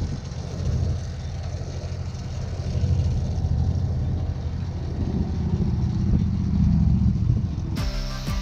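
An engine running steadily at idle, a low rumble that grows a little louder for a couple of seconds and then cuts off shortly before the end.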